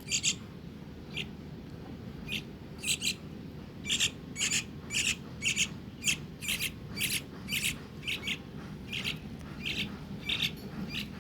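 A young bird chick giving a long series of short, high chirps, roughly two a second, irregularly spaced.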